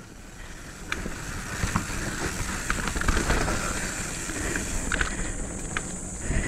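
Mountain bike riding down a dirt trail: a steady rush of tyre and wind noise with a low rumble and scattered short clicks and knocks from the bike over the rough ground.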